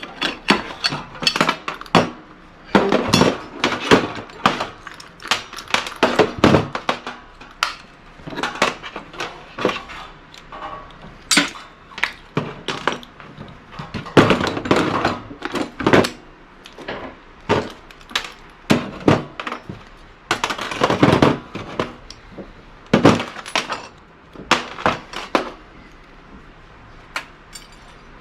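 Irregular metal clanks, knocks and clinks of hand tools on sheet-metal and copper parts as a gas wall heater is dismantled for scrap.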